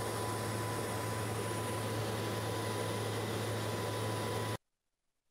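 Steady in-flight aircraft noise, an even rush with a low hum and a thin steady whine in it, cutting off suddenly about four and a half seconds in.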